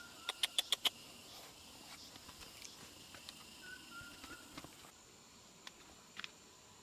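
A quick run of five sharp clicks in the first second, then faint outdoor quiet with a few short high chirps and two more clicks near the end. A steady high insect-like drone sets in during the last two seconds.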